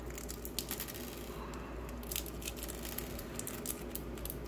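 A small clear plastic bag of screws crinkling and crackling as fingers pull it open, in many small irregular crackles.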